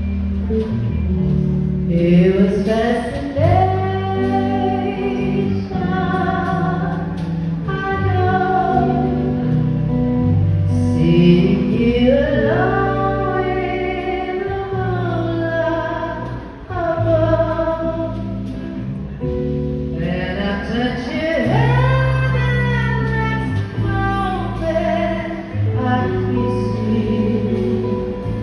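Live band playing a song with a lead vocal: sung phrases over keyboard, bass and drums.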